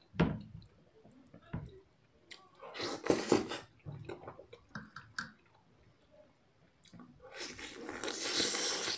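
Close-up eating sounds: chewing and biting into a fried chicken drumstick and noodles, with wet mouth noises in short bursts. The loudest come about three seconds in and over the last second and a half, as he bites into the drumstick.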